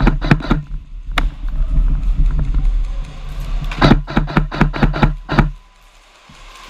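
Music with rhythmic guitar strikes, dropping to a hazy low sound for a couple of seconds in the middle before the strikes return.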